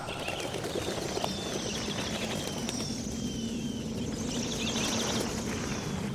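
A large flock of small birds calling, many short overlapping chirps over a steady background hiss.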